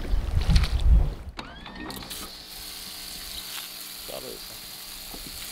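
A loud low rumble that cuts off about a second in. It is followed by the steady hiss of a deck-wash hose spraying water onto the anchor chain and the bow deck, with a few faint clicks.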